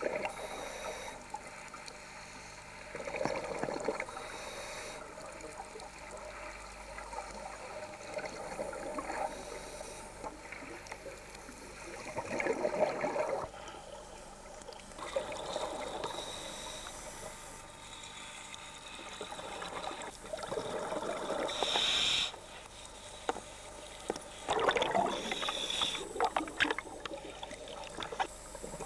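Scuba diver breathing through a regulator underwater: a rushing burst of exhaled bubbles every few seconds, with quieter gurgling between breaths.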